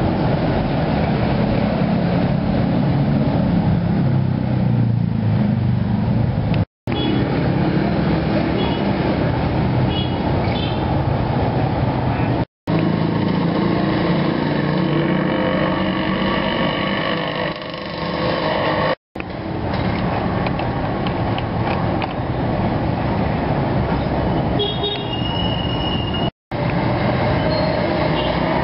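Road traffic running steadily at a roadside, with faint voices underneath and a few brief high tones. The sound drops out completely for a split second several times.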